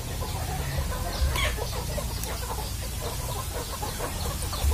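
A flock of Indonesian free-range village chickens (ayam kampung) clucking continuously, many short overlapping calls, with a few higher rising calls about a second and a half in, over a steady low rumble.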